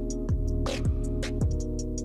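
Background music: a hip-hop style beat with quick hi-hat ticks, held synth chords, and deep bass notes that slide down in pitch, twice.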